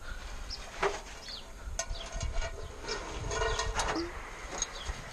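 Small birds chirping in short, quick calls, with a few knocks and a brief creak in between.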